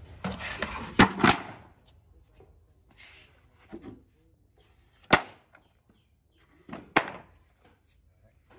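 Sharp knocks and clatter: a scraping, rustling burst with a quick double knock about a second in, then single sharp knocks about five and seven seconds in.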